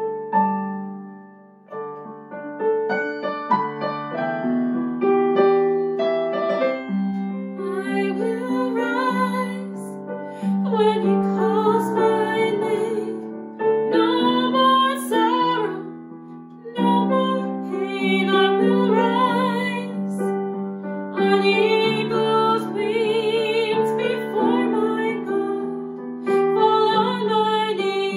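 A woman singing a slow worship song over piano accompaniment. The piano plays alone at first, and her voice comes in about eight seconds in, in phrases with short breaks between them.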